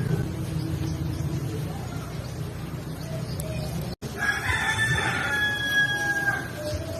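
A rooster crows once, a single long call of about two seconds, over a steady low rumble.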